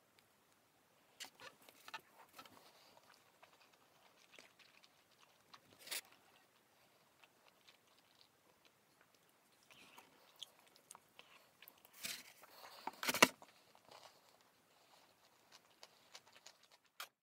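Faint chewing of sushi close to the microphone, with scattered small clicks and taps; the loudest cluster comes about twelve to thirteen seconds in.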